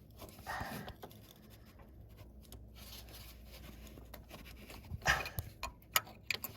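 A short, hard breath out about half a second in, then a cluster of sharp clicks and knocks near the end from hand tools working on the starter's fasteners.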